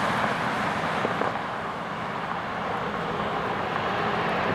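Fire engine approaching along a road: a steady rush of engine and road noise that dips slightly and then grows louder near the end.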